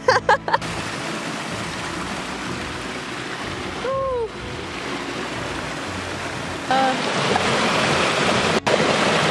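Shallow stream rushing and splashing over rocks, a steady hiss of water that grows louder about two-thirds of the way through. Brief wordless exclamations come twice, about four and seven seconds in.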